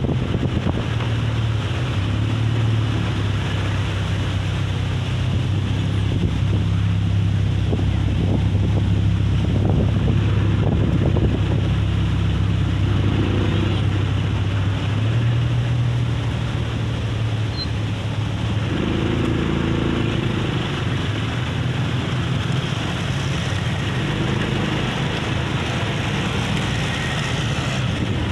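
Strong sea-beach wind buffeting the microphone in a steady loud rumble, with a low steady hum underneath.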